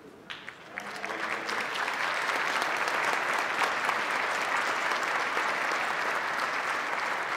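Large audience applauding, the clapping starting within the first second and building quickly to steady, sustained applause.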